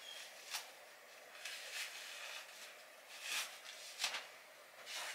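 A handful of brief, soft rustles and handling noises, about six, spread over a few seconds, from fabric and hair being handled at close range.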